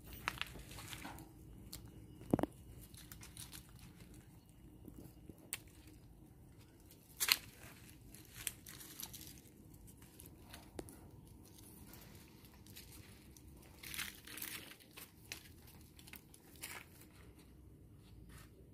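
Faint scattered rustling and crinkling from a small monkey clambering about in tree branches, with a few sharper clicks and knocks, the loudest about seven seconds in.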